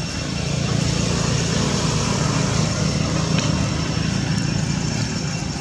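A motor engine running steadily, its low hum swelling about half a second in and easing off near the end.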